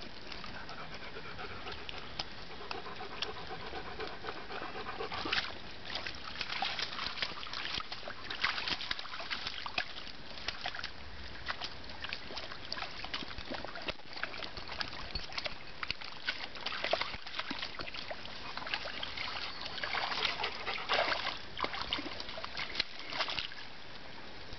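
Dogs panting while they wade through a shallow stream, with water splashing and trickling around their legs and frequent small splashes as they step and nose in the water.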